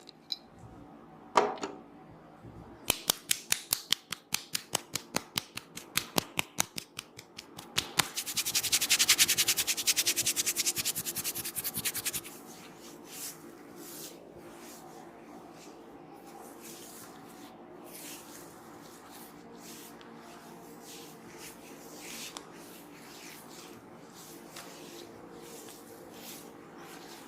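Hands tapping on a head during a head massage. The sharp pats start about three seconds in at about four a second, then quicken into rapid drumming for about four seconds. After that comes quiet rubbing and scratching of hair and scalp, with an occasional soft tap.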